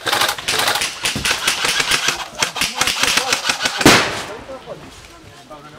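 Airsoft guns firing in rapid strings of shots, a fast clatter of clicks, with one louder sharp crack about four seconds in, after which the firing dies down.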